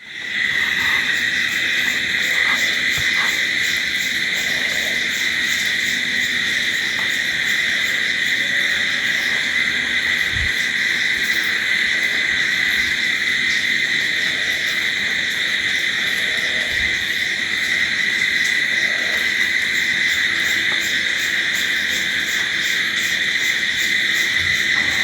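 Crickets chirping in a dense, steady night chorus, a continuous high-pitched trill with a fast pulse, fading in at the very start.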